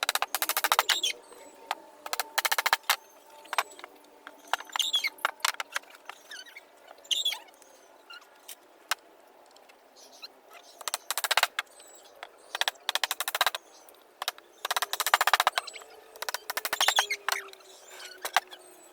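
Short bursts of a power tool running, a very fast rattling each lasting about half a second to a second, repeated several times, with birds chirping in between.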